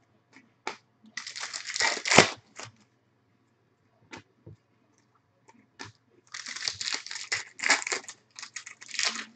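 Foil wrapper of a Bowman Chrome baseball card pack crinkling and tearing as it is ripped open, in two bursts, one about a second in with a sharp snap, the other from about six seconds in. Light clicks of cards being handled fall in between.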